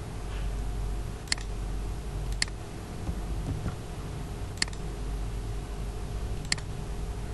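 Four single, sharp computer-mouse clicks, spaced one to two seconds apart, over a low steady hum.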